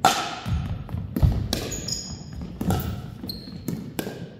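Pickleball rally: sharp pops of paddles striking the hollow plastic ball and the ball bouncing on the wooden floor, about eight hits at an uneven pace, each ringing briefly in the large hall. Brief high squeaks of court shoes on the floor come between hits.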